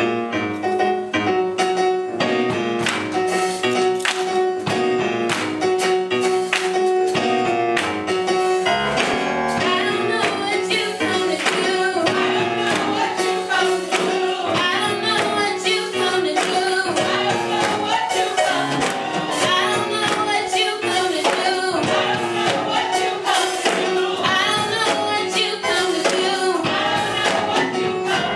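Gospel praise and worship music: the church's worship team singing with the band, percussion keeping a steady beat.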